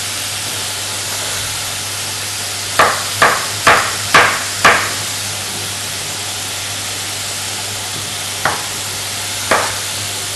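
Kitchen knife slicing raw potato on a wooden cutting board: sharp knocks of the blade on the board, five in quick succession a few seconds in and two more near the end. Underneath, the steady sizzle of minced meat searing in a pan.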